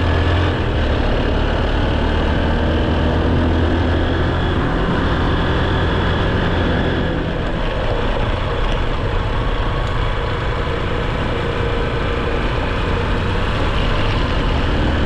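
An engine running steadily with a deep, even hum, fading out just after the end.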